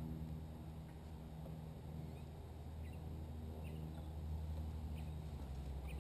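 Low steady rumble with faint, short, high bird chirps about once a second.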